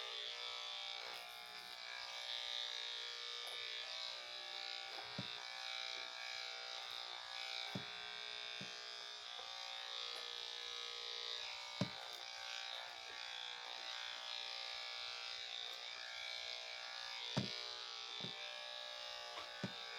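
Electric dog clippers running steadily, a constant motor buzz while shearing matted hair from a dog's coat, with a few short clicks scattered through.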